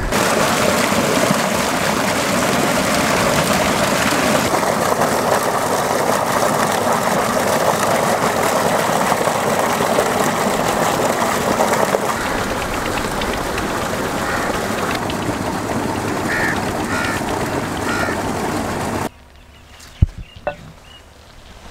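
Heavy stream of tubewell water gushing from a pipe and splashing into a brick tank and over a steel bowl as chicken pieces are rinsed under it. It cuts off abruptly about 19 seconds in, leaving quiet outdoor background with a few faint taps.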